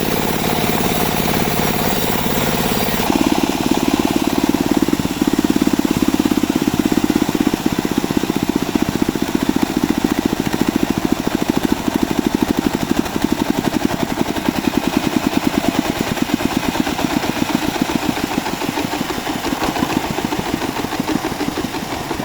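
Small engine of a homemade bandsaw sawmill running steadily with a fast, even pulsing beat, easing off and getting quieter near the end.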